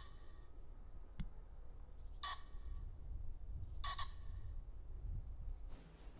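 A bird calling outdoors: two short calls about a second and a half apart, with a faint click about a second in, over a low rumble.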